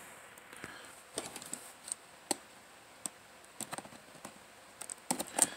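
Folding utility knife blade cutting through the clear seal sticker on a cardboard power-supply box: a scatter of small sharp clicks and scratches, bunched near the end.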